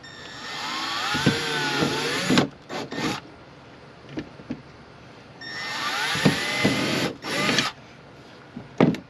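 Cordless drill working into a canoe's gunwale in two long runs of about two seconds each, each followed by a couple of short bursts; the motor's pitch rises and dips under load. A sharp knock comes near the end.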